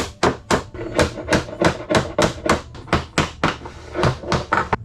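Rapid hammering, about four sharp blows a second, as vinyl flooring planks are tapped into place.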